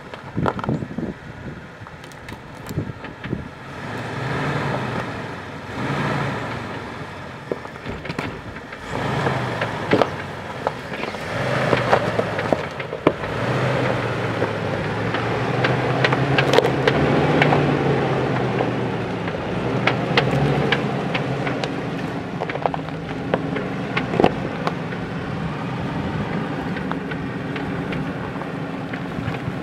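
2005 Jeep Wrangler Unlimited Rubicon's 4.0-litre straight-six engine running at low speed, its revs rising and falling as the Jeep crawls over a rocky trail. Sharp clicks and knocks of the tyres on rock are scattered through it.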